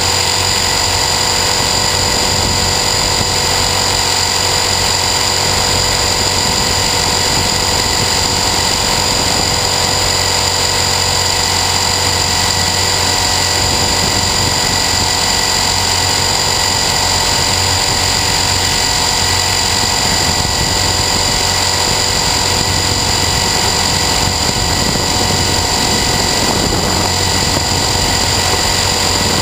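Align T-REX 450 Sport electric RC helicopter heard from a camera mounted on it: a steady whine at several high pitches from the motor and gears, over a constant low rotor drone.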